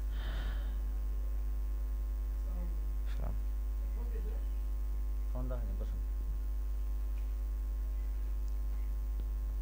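Steady electrical mains hum with an even ladder of overtones, unchanging throughout, and a faint click a little after three seconds in.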